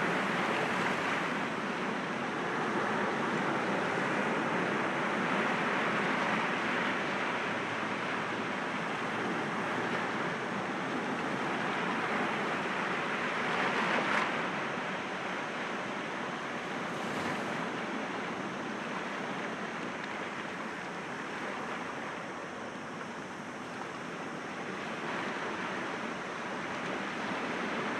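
Sea waves breaking gently against rocks: a continuous wash of surf that slowly swells and eases, with its loudest surge about halfway through.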